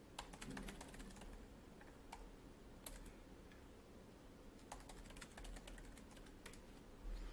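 Faint typing on a computer keyboard, in short runs of keystrokes with pauses between.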